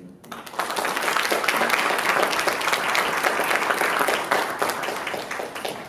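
Audience applauding: many people clapping at once, building up within the first second, holding steady, then tapering off near the end.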